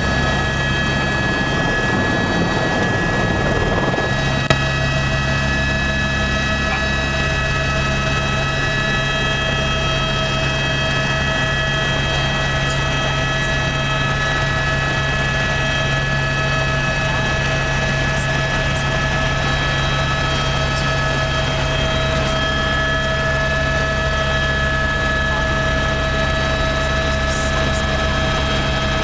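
Helicopter's turbine engine and rotor running at take-off power, heard from inside the cockpit: a steady whine of several high tones over a dense, even rotor rumble. A single sharp click about four and a half seconds in.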